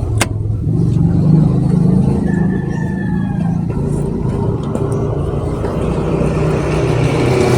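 A vehicle engine running steadily while on the move, with a single sharp click just after the start.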